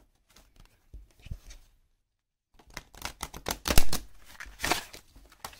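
A deck of large, sturdy-cardstock oracle cards being shuffled by hand, with cards sliding and snapping against each other. It is faint at first and then, after a brief silent gap, a busy run of louder card slaps and riffling that peaks a little past halfway.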